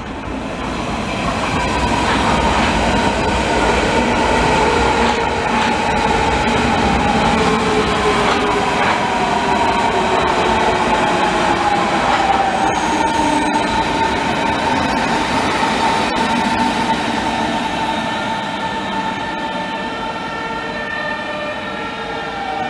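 Berlin S-Bahn electric multiple unit running past on its track, its electric traction motors whining in several tones that slowly drop in pitch over the steady rumble of wheels on rail.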